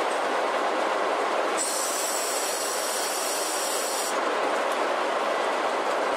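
Steady rushing noise on the work deck of an anchor-handling vessel at sea, with a high hiss joining in for about two and a half seconds in the middle.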